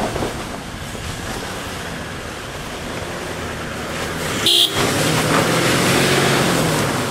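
Toyota LandCruiser 76 Series' V8 turbo-diesel engine working under load as the vehicle climbs a rutted dirt track, growing louder as it comes closer. About four and a half seconds in, a brief high-pitched beep cuts through.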